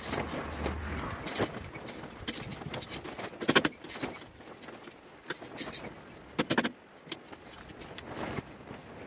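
Irregular metallic clicks and scrapes as the upper splined steering shaft of a Fordson Dexta tractor is turned and threaded down into its steering column, with one sharper knock about three and a half seconds in.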